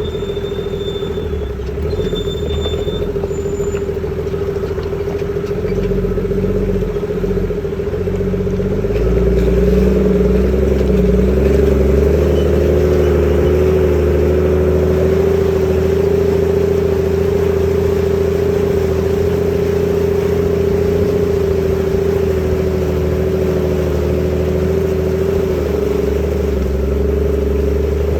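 Nissan Patrol 4WD's engine running steadily with a droning whine, getting louder and heavier about nine seconds in and then holding.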